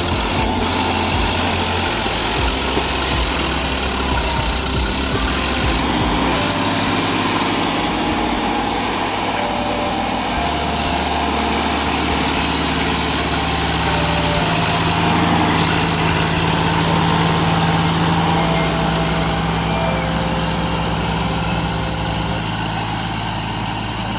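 Sonalika DI 745-III tractor's diesel engine running under load, straining to pull a trolley heaped with sand out of soft sand. The engine note shifts up and down several times.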